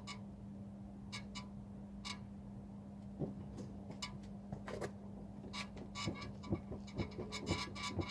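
Short, high-pitched squeaks from the rear of a BMW E91 3 Series Touring, likely the rear suspension. They come a few at a time at first, then in quick runs from about six seconds in, over a steady low hum and a few soft knocks. The cause of the squeak has not been identified.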